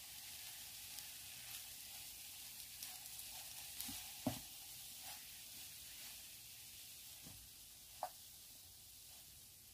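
Faint sizzling of masala chips in a non-stick frying pan as a metal spatula stirs in chopped coriander, with a few light knocks of the spatula against the pan, the clearest about four seconds and eight seconds in.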